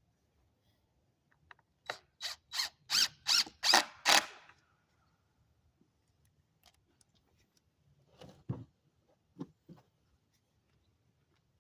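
About seven quick scraping strokes of a hand tool on wood, close to three a second, followed a few seconds later by a few dull knocks.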